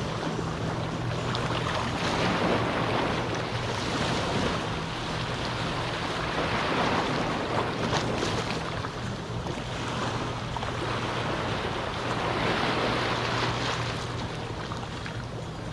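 Small waves of a calm sea washing ashore, the surf swelling and easing every few seconds. A steady low hum runs underneath.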